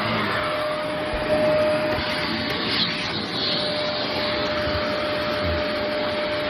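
Shark vacuum cleaner running steadily: a continuous rushing whir with a steady whine.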